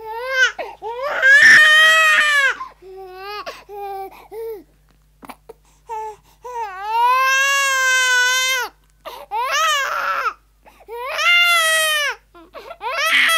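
Infant crying hysterically: repeated high-pitched wails broken by short catching breaths, with one long held wail about seven seconds in.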